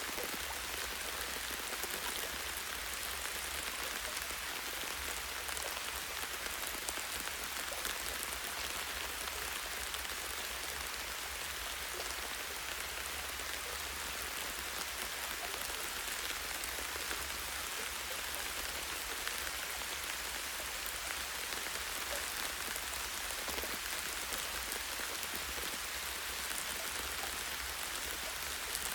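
Light, steady rain falling on forest foliage and tree branches: a continuous patter of small drops with fine individual drop ticks. A steady low rumble sits beneath it.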